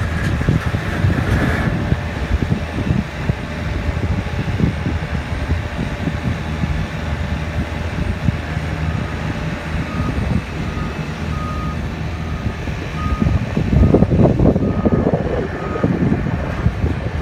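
Diesel engine of a Hyundai HL940XT wheel loader running, with its reversing alarm beeping about once every 0.7 seconds from about halfway through until shortly before the end, as the machine backs up. The engine grows louder for a moment around fourteen seconds in.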